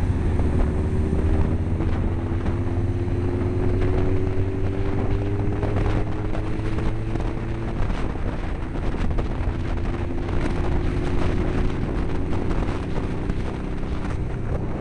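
Motorcycle riding at road speed, heard from a helmet-mounted camera: heavy wind buffeting on the microphone over the engine's note, which climbs slowly for the first half, drops back a little past halfway, then climbs gently again.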